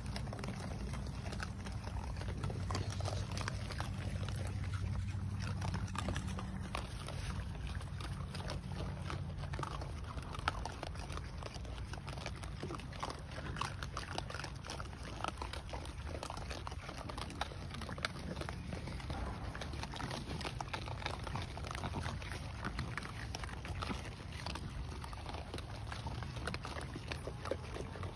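A group of raccoons eating at a trough: a dense, irregular patter of crunching, smacking chewing and small clicks, with a low hum under the first several seconds.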